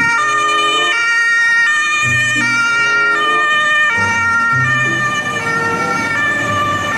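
Fire-engine siren sounding in steady stepped tones, switching pitch about every three-quarters of a second.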